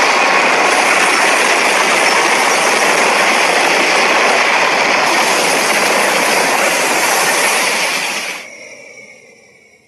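Gamera monster-film sound effect from Daiei: a loud, steady rushing blast of noise that drops sharply about eight seconds in, leaving a fading tail with a faint falling whine.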